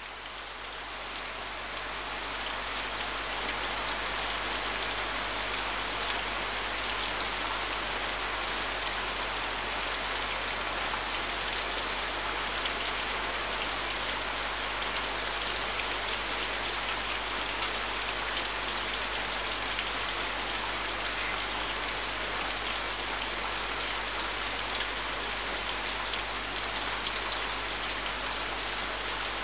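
Steady heavy rain falling, a dense even hiss with scattered drop ticks, fading in over the first couple of seconds.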